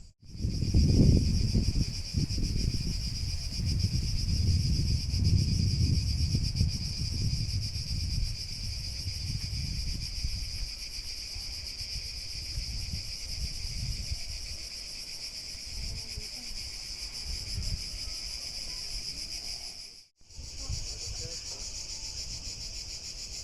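Steady, high-pitched chorus of insects chirring without a break, over a low, uneven rumble of wind on the microphone that is strongest in the first half. The sound cuts out for a moment near the end and then resumes.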